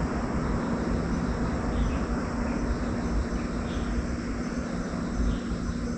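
Steady outdoor ambience: a constant low hum over a rumble, with faint steady high-pitched tones above it.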